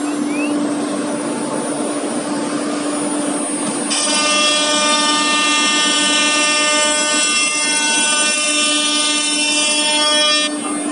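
Wood CNC router running, its spindle whining at a steady pitch. About four seconds in, a louder whine with many overtones joins. It cuts off shortly before the end.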